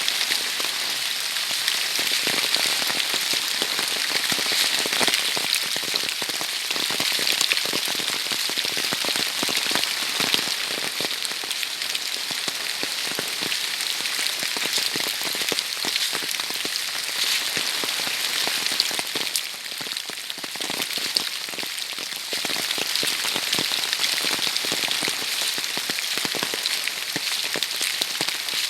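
Heavy autumn rain falling steadily, a dense patter of countless drops, easing slightly for a couple of seconds about two-thirds of the way through.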